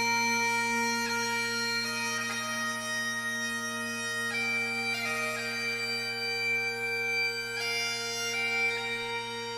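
Music: a slow melody of long held notes over a steady, unchanging drone.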